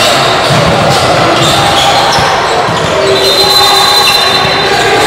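Basketball game play in a gym: a ball bouncing on the court over a steady din of voices, with a thin high squeal from about three seconds in.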